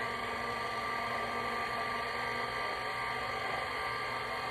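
Electric mixer running at a steady speed, beating flour into cake batter.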